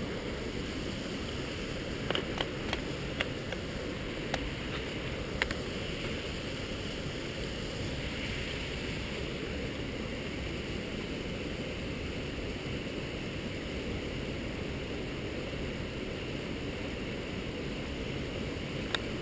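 Steady rush of falling water from a waterfall, with a few sharp clicks between about two and five and a half seconds in.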